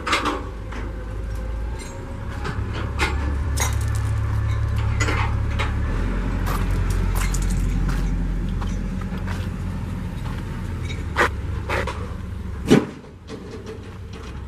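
Low rumble of wind buffeting the camera microphone, swelling and easing. Scattered light clicks and scuffs of footsteps and handling run under it, with one sharp knock near the end.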